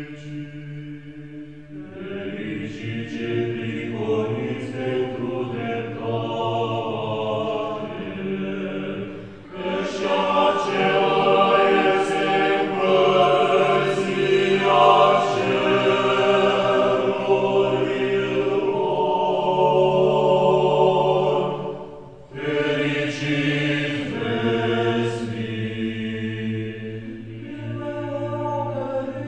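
Orthodox liturgical chant sung by a group of voices in long held notes, with brief breaks between phrases about ten seconds in and again past twenty seconds.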